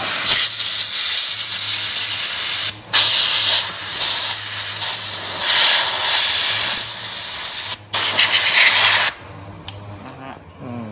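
Compressed-air blow gun hissing in three blasts, blowing water off a freshly wet-blasted aluminium Yamaha Nouvo crankcase to dry it; the air stops about nine seconds in.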